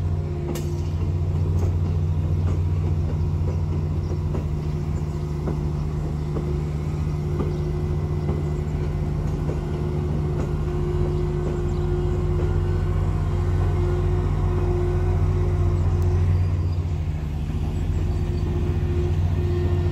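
Diesel engines of a Pesa 730ML diesel multiple unit running as the train rolls slowly underneath: a steady low drone with a steady higher hum over it.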